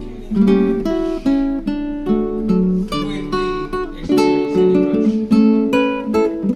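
Acoustic guitar playing, a run of strummed and picked chords.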